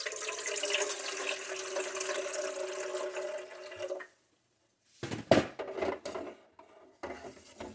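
Water running from a tap into the espresso machine's water tank, splashing over a steady tone, until it stops about four seconds in. A few sharp knocks follow.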